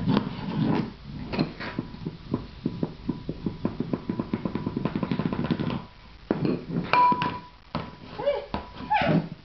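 A ceramic dog bowl clattering and wobbling on its rim on a hard tiled floor, the rattle quickening until it stops about six seconds in, followed by a few separate knocks of the bowl.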